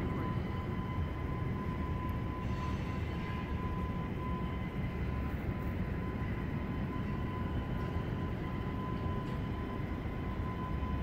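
Steady mechanical drone: a low rumble with a constant high-pitched whine over it, unchanging throughout.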